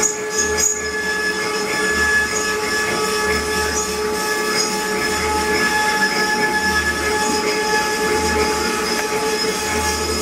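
CNC wood-carving router running: a steady high whine from the spindle over cutting noise, with a low hum that swells and fades about once a second.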